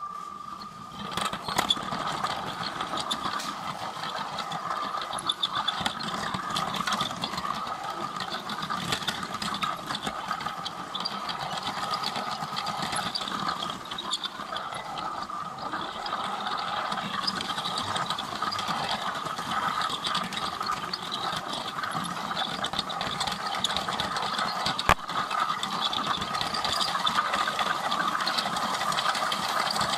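Lego train's small electric motor whining steadily with a gear and wheel rattle as the train runs along plastic track, heard up close from on board. One sharper click about 25 seconds in.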